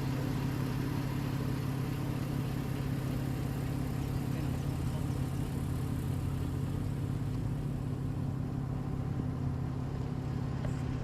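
Jeep Grand Cherokee engine idling steadily.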